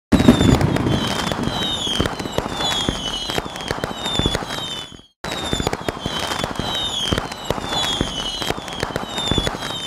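Fireworks going off: rapid bangs and crackles with short whistles falling in pitch. It cuts off abruptly about five seconds in and starts again the same way.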